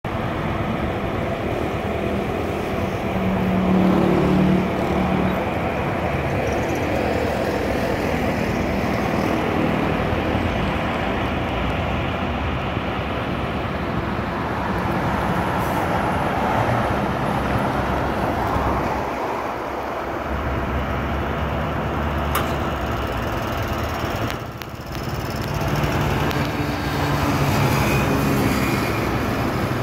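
Steady road traffic noise from vehicles passing on a nearby road, rising and falling slightly as they go by.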